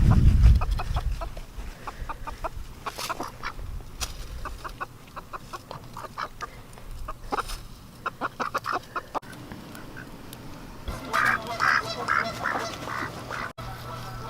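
Ducks quacking and chickens clucking in runs of short calls, with a louder burst of calls near the end. A loud low rumble sounds briefly at the start.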